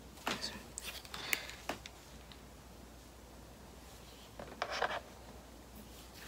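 Rustling and clicking of a small cosmetic package, a hand cream tube and its wrapping, being opened by hand. A cluster of crinkles and sharp clicks comes in the first two seconds, and a shorter burst about four and a half seconds in.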